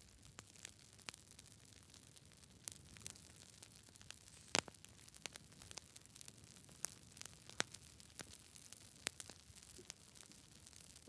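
Wood campfire crackling: irregular sharp pops and snaps over a soft steady hiss, the loudest pop about four and a half seconds in.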